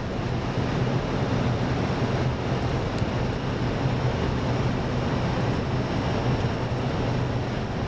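Steady rush of air and engine noise on the flight deck of an Airbus A320 on final approach, with a constant low hum beneath it.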